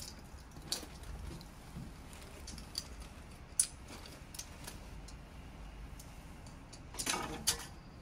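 A few scattered light clicks and small rattles over a low steady rumble, with a short cluster of them near the end.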